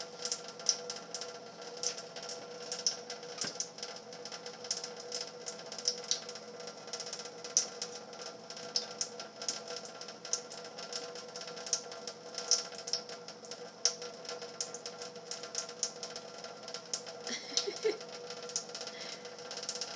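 A thin stream of tap water running into a stainless steel sink, with irregular sharp ticks and splashes over a steady hum.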